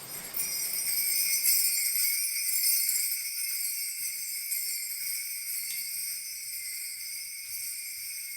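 Kaskawillas, Mapuche bronze bells, shaken in a continuous, rapid, shimmering jingle that starts suddenly. They are loudest over the first few seconds, then settle to a steadier ringing. The bell sound is played to imitate falling water.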